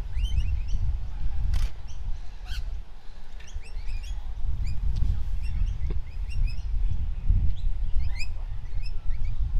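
Small birds chirping over and over, many short rising calls, over a steady low rumble.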